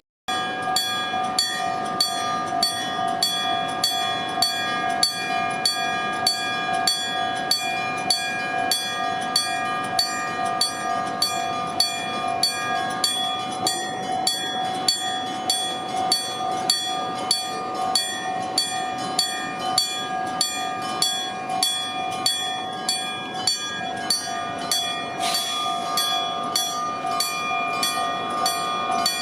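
Japanese railway level-crossing warning bell ringing in a steady, even rhythm of about two strokes a second.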